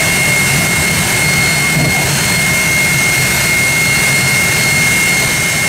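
Jet engine of the Bone Shaker jet truck running steadily: a loud, even rushing roar with a constant high whine.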